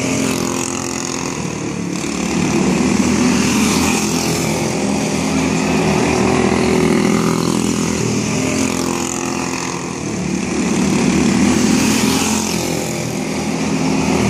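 Quarter midget race cars' small single-cylinder Briggs & Stratton Animal engines running on track. Their sound swells and fades several times as the cars come past and move away.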